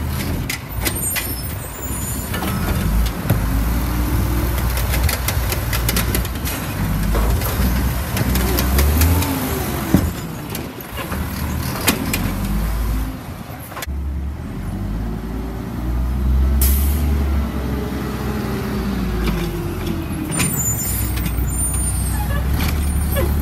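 Mack LE automated side-loader garbage truck's engine revving up and falling back twice as its hydraulic arm cycles to pick up the carts, with knocks and clanks from the arm and carts and a short hiss of air about two-thirds through.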